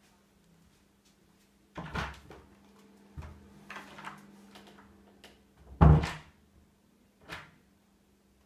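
A white panelled interior door with a lever handle being worked open and shut: a run of separate knocks and latch clicks, the loudest thump about six seconds in, over a faint steady hum.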